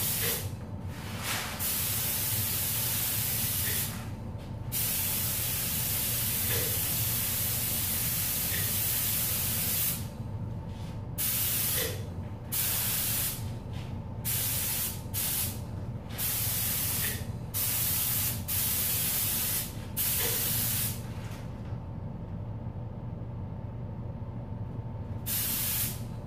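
Paint spray gun hissing in repeated passes as the trigger is pulled and released, with many short breaks and one longer pause of a few seconds near the end. A steady low hum runs underneath.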